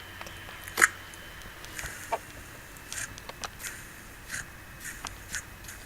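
Slime being squeezed and worked by hand, giving scattered short wet clicks and pops, the loudest about a second in.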